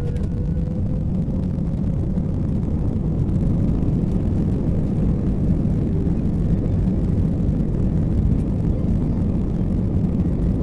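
Airbus A320 jet engines at takeoff thrust heard inside the cabin: a steady, loud, low rumble that swells a little in the first few seconds as the airliner accelerates down the runway.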